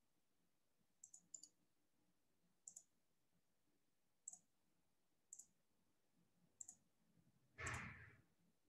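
Computer mouse clicking about six times, some in quick pairs, as line vertices are placed on snapped points. A brief soft rush of noise comes near the end, against near silence.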